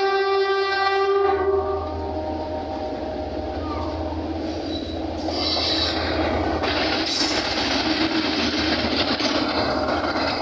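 Pakistan Railways RGE 24 diesel locomotive sounding its air horn, which cuts off about a second and a half in. Its engine rumble and wheel noise on the rails follow as it passes close by, loudest in the middle.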